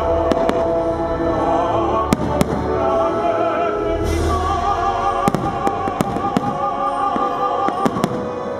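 Aerial firework shells bursting in a string of sharp bangs over a deep low rumble, with music and singing playing along with the display.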